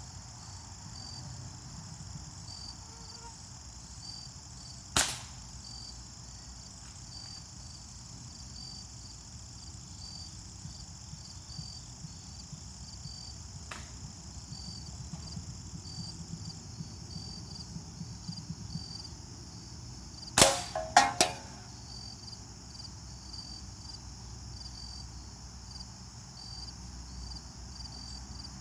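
Remington Blackhawk pellet rifle shots: one sharp crack about five seconds in, a faint click near the middle, then another crack followed quickly by two more sharp cracks. Steady high chirring of crickets runs underneath.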